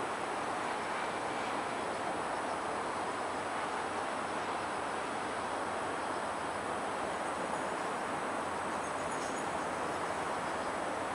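Freight train's container wagons rolling along the track: a steady, even noise of wheels on rail as the train runs on.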